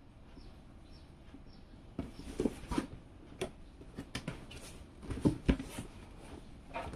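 Cardboard box being handled and turned over, giving a series of light knocks, taps and rubs. The first two seconds are quiet, and the loudest pair of knocks comes about five and a half seconds in.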